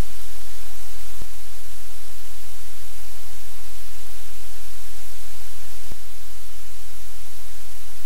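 Steady electrical hum and static hiss from the live-cam microphone line, with two faint clicks, one about a second in and one about six seconds in.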